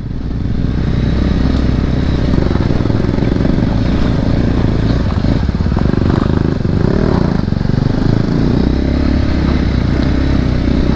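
Motorcycle engine running steadily while the bike is ridden off-road over rough ground.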